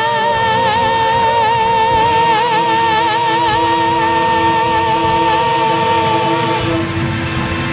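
A woman singing one long held note with a wide, even vibrato, which ends about six and a half seconds in, over a steady lower held note that comes in about two seconds in.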